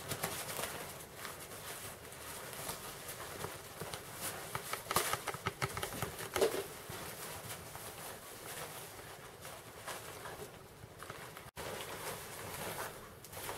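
Rustling of a fabric boat carry bag and its webbing straps as they are handled and loosened: a run of scattered light rustles, rubs and taps.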